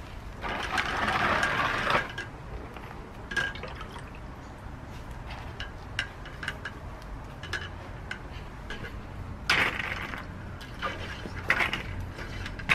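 Water sloshing and running off as a copper pressure sprayer tank is lifted out of a plastic tray of water, followed by scattered light knocks and clinks as it is handled and set down, with two short noisy bursts near the end.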